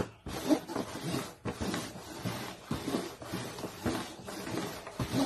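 A small white dog snuffling and breathing close to the microphone, its nose down at the cups, while paper cups slide and tap on the board.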